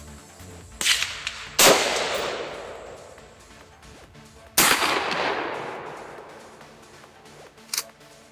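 Gunshots from an AR-style rifle and a pump-action shotgun: a sharp crack about a second in, then two loud shots, each trailing off in a long echo over a couple of seconds. Near the end come two short sharp clacks, with faint background music underneath.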